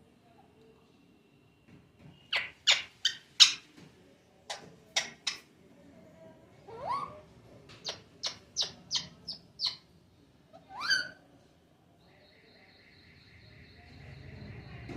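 Pet parrot giving short, sharp calls in quick runs: four, then three, then about six in a row, with two longer rising calls in between. Toward the end a steady hum comes up.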